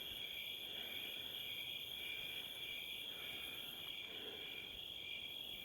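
Crickets trilling in a steady night chorus, a continuous high-pitched chirring that does not let up.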